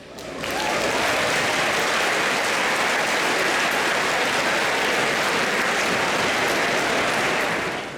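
Audience applauding: the clapping builds up over the first second, holds steady, and dies away just before the end.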